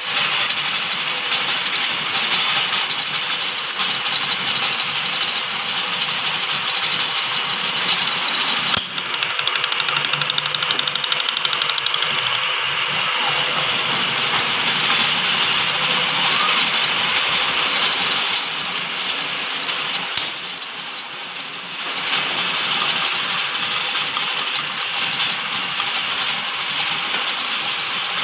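Automatic lathe running, cutting bush bearings with coolant flooding the tool: a steady, mostly high-pitched machining noise that dips briefly about twenty seconds in.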